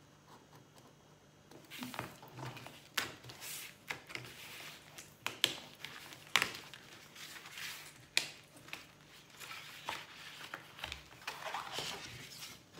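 Sheets of printed paper being handled: irregular rustling and sharp crackles as a cut-out piece is pulled free from the sheet and the layered prints are shifted and flipped. It starts after a quiet second or two.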